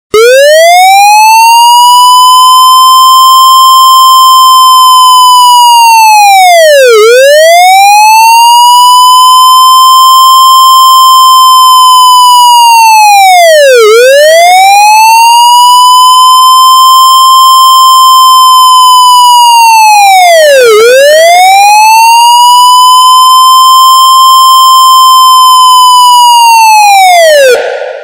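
Police siren on a slow wail, loud: its pitch rises, holds high and drops back about every seven seconds, four cycles in all, then it dies away right at the end.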